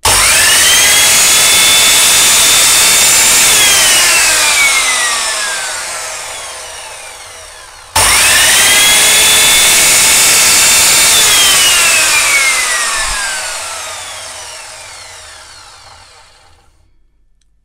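Evolution Rage 3S mitre saw's brushed motor and blade running free with no cut, on new carbon brushes and a freshly skimmed armature. It is switched on twice: each time it runs up to a loud, steady high whine, holds for about three seconds, then is released and winds down with falling pitch over several seconds.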